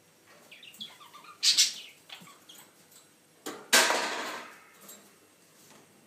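A budgerigar chirping in short, soft notes, broken twice by much louder harsh noises: one brief, one longer that fades out.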